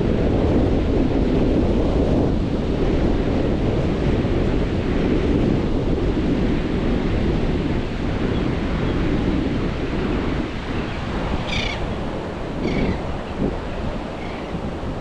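Ocean surf washing in, with wind buffeting the microphone: a steady, heavy low rushing noise. A few short high-pitched calls sound briefly near the end.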